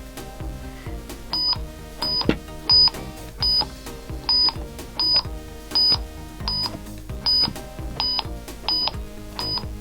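Tap It game's wireless light pods beeping: about a dozen short, shrill electronic beeps, one every half second to second, as the pods are tapped in the memory game, over background music.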